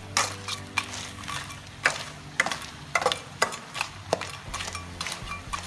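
Flat metal spatula scraping and knocking against a stainless steel wok as crabs and onions are stir-fried, the crab shells clattering; irregular strokes, some sharper than others.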